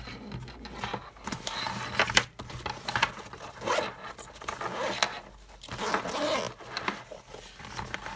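Zipper on a small EDC pouch being pulled, in several strokes, with scraping and rustling as the pouch is handled.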